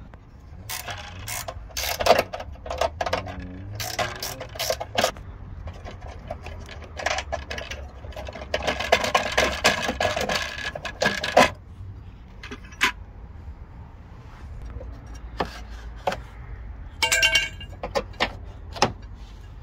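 Hand-tool work on the car's front end: a spanner and steel bolts clicking and clinking as the horn bracket and the rusty front support braces are unbolted. There is a denser rattling stretch about halfway, and a bright ringing metallic chink near the end.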